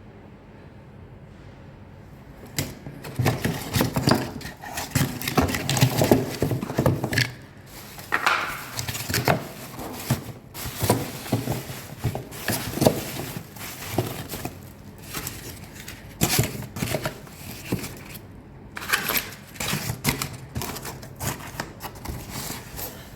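Irregular clicks, knocks and rattles of parts being handled while working on the split air-conditioner's indoor fan motor, starting about two seconds in and going on in uneven bursts.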